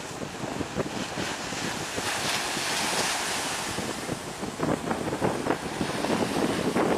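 Choppy sea water sloshing and splashing around a man wading chest-deep, with surf washing and wind buffeting the microphone; a louder rush of surf swells up about two seconds in and eases off a second or so later.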